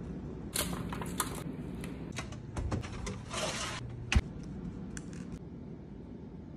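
Kitchen handling sounds over a steady low hum. Cauliflower and onion rustle as they are tossed in a glass bowl, then comes a run of short clicks. Just after four seconds there is a single sharp knock from the oven door being handled.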